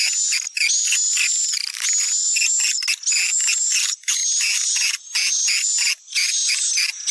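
Swiftlet lure call (suara panggil walet): recorded swiftlet twittering, a rapid high chirring over a held high whistle, in phrases about a second long broken by short gaps.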